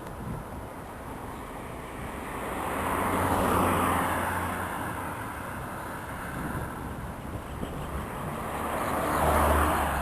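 Two road vehicles passing by one after the other, each growing louder and then fading; the first passes about a third of the way in, the second near the end.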